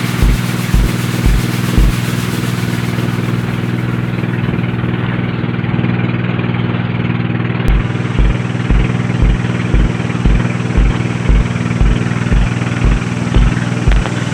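Motorboat engine running steadily at an even pitch, with a deep thump repeating about twice a second that drops out for several seconds.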